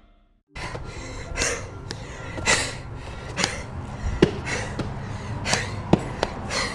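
A person breathing heavily, with soft, breathy swells about once a second and a few sharp clicks.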